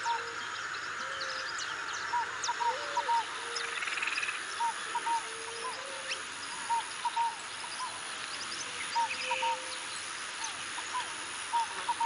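Wetland birds calling: a short call, mostly in doubled notes, repeats about once a second, with lower gliding notes and scattered high chirps. A thin steady high whine comes in about three seconds in and runs over a steady hiss.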